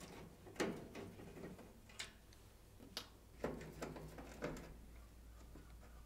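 Phillips screwdriver unscrewing screws from an oven's sheet-metal top panel: a few faint, separate clicks and scrapes of the bit turning in the screw heads, with a short run of them about halfway through.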